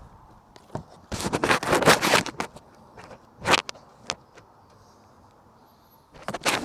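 Scraping and rustling noises in irregular bursts, the longest lasting about a second, with short ones later and more near the end; the chainsaw is not running.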